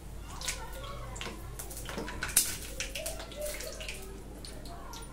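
Hot oil sizzling and crackling in a steel kadai on a gas stove, with clinks of a metal slotted spoon against the pan; the sharpest clink comes about two and a half seconds in.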